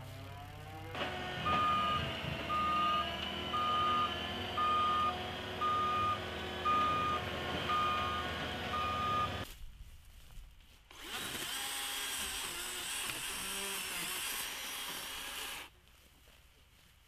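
Engine of a Cat compact track loader with a forestry mulcher head running while its reversing alarm beeps about once a second, eight beeps in a row. After a short break a second machine runs for about five seconds with a harsher, higher sound.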